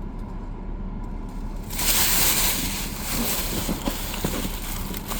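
Steady low hum inside a car cabin. About two seconds in, a loud rushing noise starts suddenly and fades over the next few seconds, with a few soft clicks.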